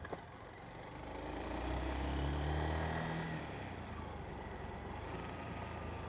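A motor vehicle engine revving up, its pitch rising over about two seconds and then easing back, over steady traffic and road noise.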